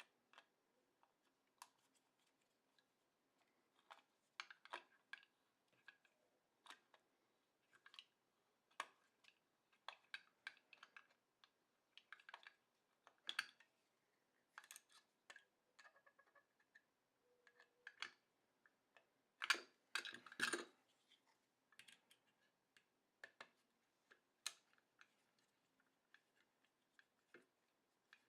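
Faint, irregular small clicks and taps of a screwdriver and small metal parts being handled as screws are taken out of an opened hard drive's internals, with a louder cluster of clicks about twenty seconds in.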